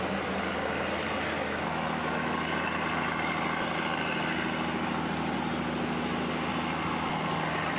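Steady drone of distant motor engines over a constant noise, its low hum changing pitch slightly about a second and a half in.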